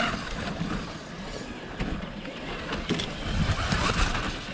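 Radio-controlled rock crawler with the camera on board, driving over rock and pine litter. Its drivetrain is running and its tyres scrabble and crackle over twigs, loudest about three and a half to four seconds in.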